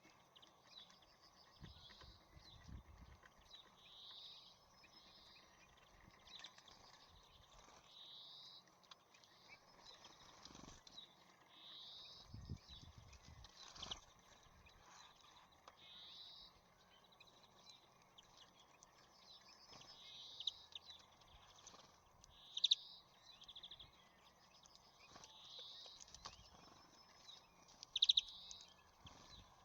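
Faint songbird song: one short high phrase repeated every two to four seconds. Scattered sharp clicks and taps run through it, with two louder clicks near the end.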